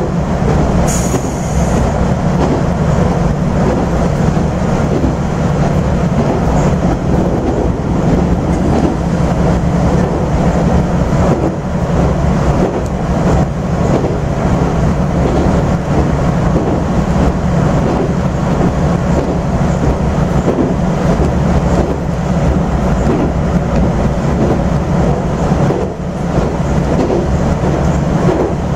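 AN8800-series diesel railcar running at speed, heard from inside the cabin: a steady diesel engine drone under continuous wheel-on-rail noise.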